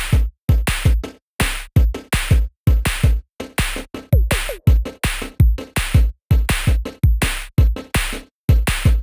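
Electronic background music with a steady drum-machine beat: punchy kick drums and claps at about two beats a second.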